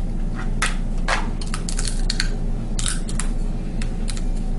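Boiled shellfish shells being cracked and crunched while eating: a run of irregular sharp cracks and crackles over a steady low hum.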